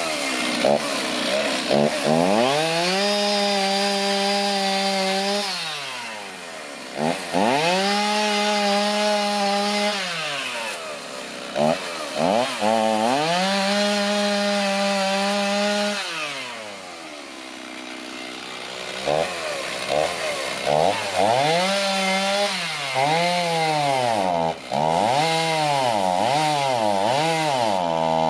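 Electric chainsaw making plunge cuts into an old ash log. The motor whine climbs, holds for a few seconds and winds down, three times, then comes in quick short pulses, about one a second, near the end.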